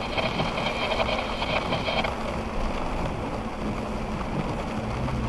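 Steady hiss of heavy rain falling in a thunderstorm, with a faint high whine over the first two seconds and a low steady hum coming in near the end.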